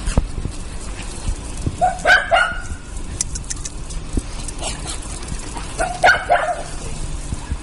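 Shetland sheepdog puppies giving short, high-pitched yapping barks, in two clusters about two seconds and six seconds in, with a fainter yelp between them.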